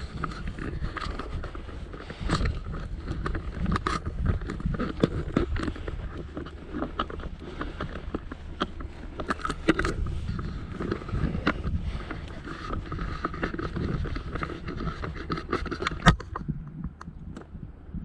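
Footsteps walking through long dry grass, with rustling of clothing and camera gear at each stride. A single sharp knock comes near the end, after which the walking stops and only a few small handling clicks are heard.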